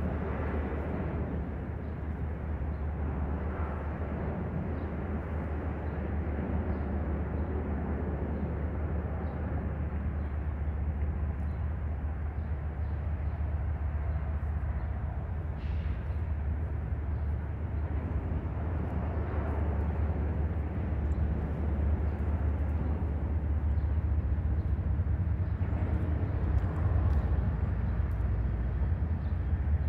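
Diesel locomotives of a Norfolk Southern freight train rumbling as the train approaches from a distance: a low, steady drone that grows slowly louder.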